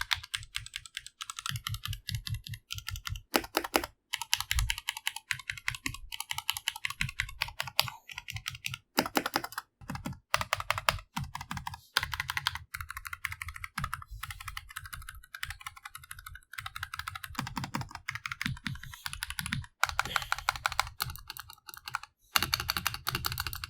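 Fast, continuous typing on a Tecware B68+ mechanical keyboard with Gateron Yellow linear switches over a metal plate and sound-dampening foam: a dense run of keystroke clacks with brief pauses.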